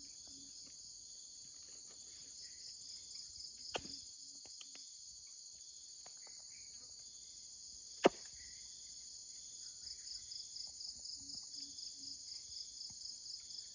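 Insects chirping steadily in a high, continuous band that pulses more plainly near the end, with two sharp clicks about four and eight seconds in, the second much louder.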